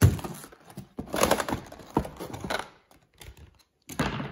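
Rigid clear plastic clamshell packaging being pulled apart and handled: irregular bursts of plastic crackling and crunching, loudest at the very start.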